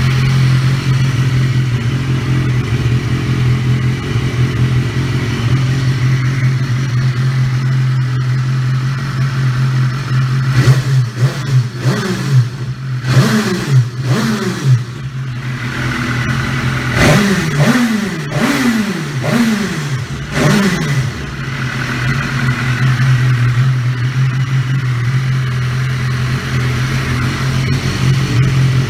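BMW S1000RR inline-four engine breathing through an SC Project slip-on silencer with its dB-killer baffle removed, idling steadily. About ten seconds in and again around seventeen seconds, it is blipped through a quick run of sharp revs, each falling straight back to idle.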